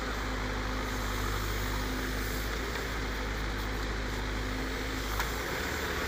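Heavy diesel engines running steadily as a Terex backhoe loader works its rear backhoe arm beside a tipper truck. A single short click comes about five seconds in.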